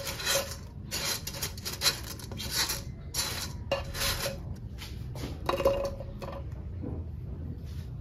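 Dry spaghetti strands rattling and rubbing against a nonstick pan as a bundle is laid in and spread out: a series of short rustles with a few sharp clicks.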